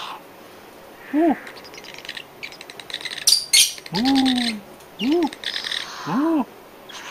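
Four soft, low hoots, each a short note that rises and falls; the second one is longer and slides down. A couple of sharp smacking clicks come a little over three seconds in.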